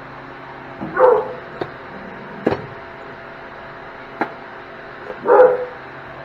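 A dog barking twice, once about a second in and again near the end, with a few sharp metallic clicks in between.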